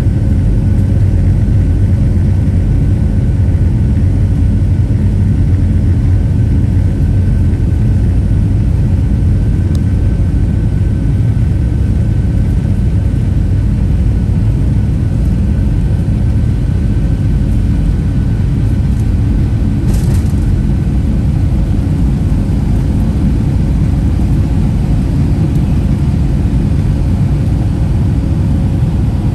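Boeing 757-200 jet engines at takeoff thrust, heard from inside the cabin over the wing: a loud, steady low rumble with a faint steady whine through the takeoff roll and into the climb. A brief sharp noise cuts in once about twenty seconds in.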